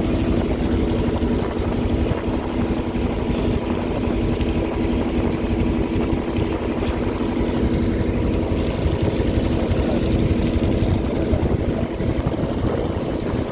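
A river boat's engine running steadily at a constant pitch, with a low rumble underneath.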